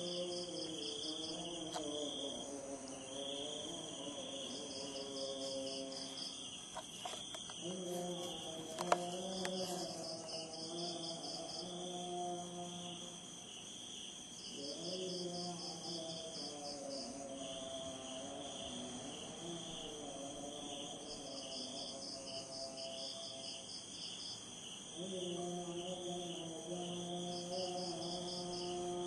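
A steady chorus of insects, crickets among them, with a rapid pulsing trill that starts and stops every few seconds. Under it a distant voice chants in long held notes that rise and fall, falling silent for a while past the middle and returning near the end.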